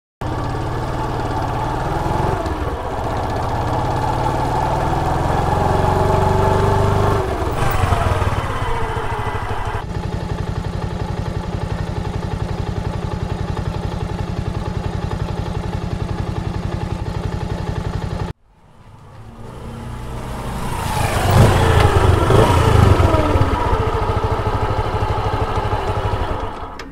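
Bajaj Pulsar single-cylinder motorcycle engine. It revs up and falls away, then runs at a steady idle. After an abrupt cut, it gets louder as it approaches and then passes by, its pitch dropping as it goes.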